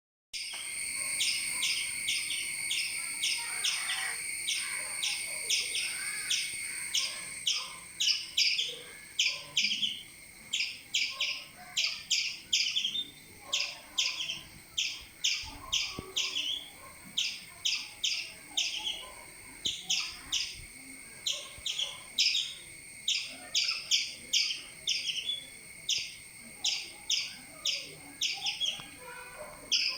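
Squirrel giving repeated sharp alarm chirps, about two to three a second in uneven runs, scolding a cat that has climbed its tree. A steady high whine sounds beneath for the first seven seconds, then stops.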